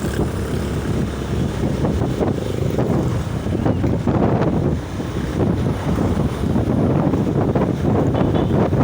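Heavy wind buffeting the microphone, a steady rushing noise with uneven gusts throughout.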